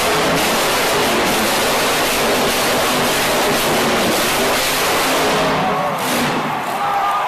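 Monster truck engine running hard at high revs as the truck spins tight circles on two wheels, loud and harsh. The sound eases a little near the end.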